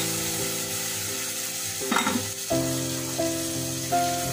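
Spice paste (masala) sizzling in oil in a steel pan with a little water just added to cook it down, stirred with a wooden spatula. Background music with held notes plays over it.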